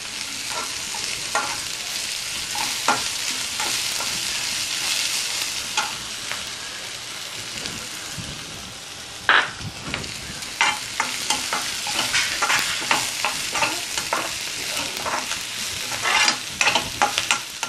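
Chopped vegetables sizzling in oil in a non-stick wok while a steel spatula stirs and tosses them. The spatula's clicks and scrapes against the pan come thicker from about halfway through.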